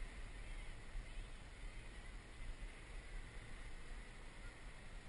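XAircraft X650V-8 multirotor drone flying high overhead, heard as a faint steady whine of its motors and propellers under an uneven low rumble of wind on the microphone.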